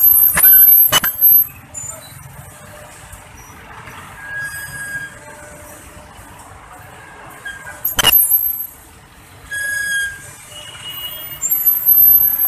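Road traffic with vehicle brakes squealing several times in high-pitched tones, loudest about a second in, around eight seconds in and near the end, with a few sharp clicks among them.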